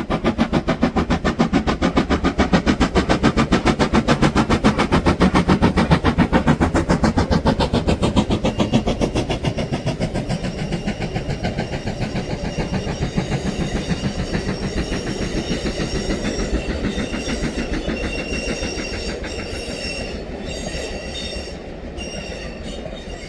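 Jacobite steam locomotive and its carriages passing over the viaduct: rapid, even exhaust chuffs with the clatter of the train on the rails, fading steadily as it draws away. A thin high wheel squeal comes in during the second half.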